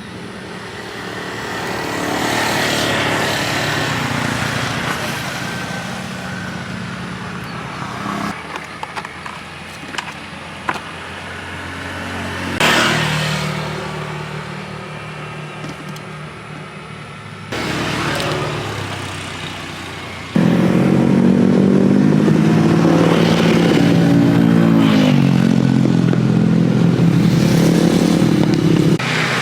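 Street traffic, mostly motorcycles with some cars, passing close by; engine notes rise and fall, and the sound changes abruptly several times.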